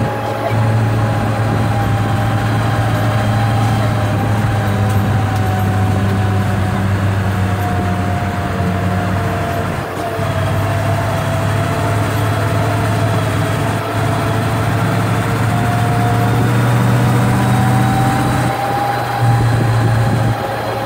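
Monster-truck tour vehicle's engine and drivetrain running steadily under way, heard from the open-sided passenger deck: a loud low drone with a thin whine that wavers slightly in pitch.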